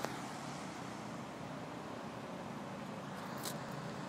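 Steady outdoor background noise, a low rumble and hiss like distant traffic, with a click right at the start and a brief high hiss about three and a half seconds in.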